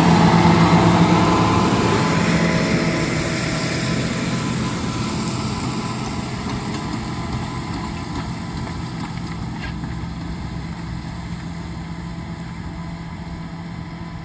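John Deere 8400R tractor's diesel engine running under load as it pulls a disk ripper past and away, its steady drone fading gradually.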